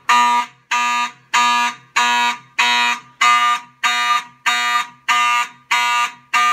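Simplex 2903-9101 fire alarm horn sounding loud, evenly pulsed blasts, about three every two seconds: the Simplex 2001 system in alarm after its pull station was pulled.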